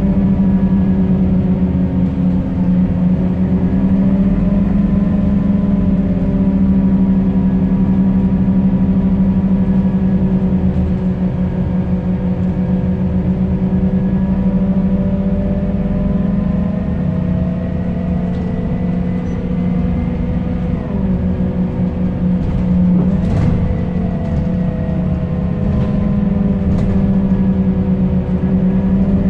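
Scania K270UB bus's five-cylinder diesel engine running under way, heard inside the passenger saloon near the rear: a steady drone whose pitch rises and falls as the bus accelerates and slows. A few sharp knocks or rattles come in about three quarters of the way through.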